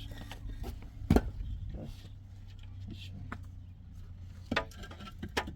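Sharp knocks of building work, the loudest about a second in and two more near the end, over a steady low hum of a running machine.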